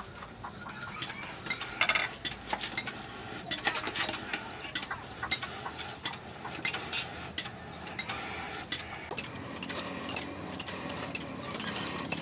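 Irregular sharp clinks and taps of metal against metal, some ringing briefly, as steel is worked by hand.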